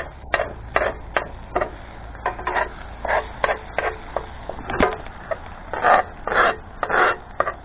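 Metal spatula scraping and knocking against a cast-iron skillet of frying eggs: a run of short, irregular scrapes and taps, the longest and loudest between about six and seven seconds in.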